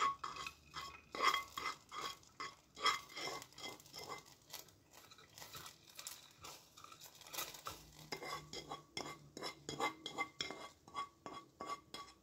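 Metal spoon scraping and tapping against a pan in quick repeated strokes, scooping out melted caramel, with a light ring on some strokes.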